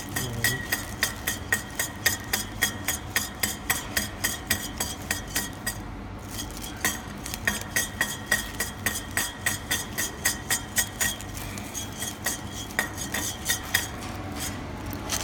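Metal screws clinking rhythmically against their container as they are agitated in a dye bath, about four clinks a second. There is a brief pause about six seconds in, and the clinks thin out near the end.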